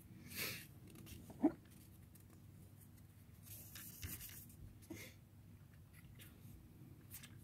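Faint handling sounds of hands working fuel filter housing parts: scattered brief rubs and scrapes, with one light knock about one and a half seconds in.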